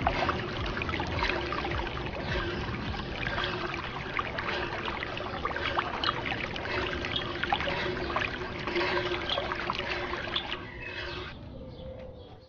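Water trickling and splashing from a miniature pump into a small diorama, with many small drips and a steady hum underneath. It fades out near the end and then stops abruptly.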